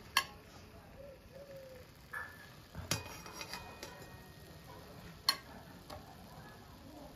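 Metal perforated slotted spoon scraping and knocking against a metal kadai while scooping out boiled jackfruit slices, with three sharp clinks: near the start, about three seconds in, and about five seconds in.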